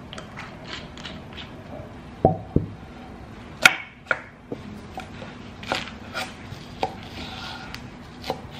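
Wooden cutting board set down with two dull thumps, then a large chef's knife cutting a leek on it: a series of sharp, irregularly spaced knocks as the blade strikes the board.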